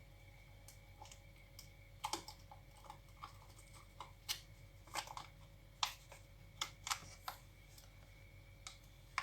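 Irregular sharp clicks and crackles of plastic packaging being worked open by hand, about a dozen over several seconds and loudest in the middle.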